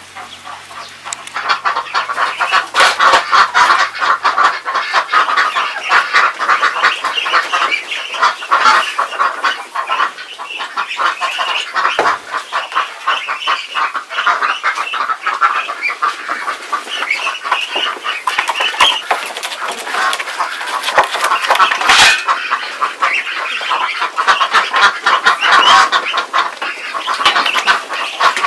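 A flock of ducks calling over one another in a continuous dense chatter, the clamour of ducks at feeding time.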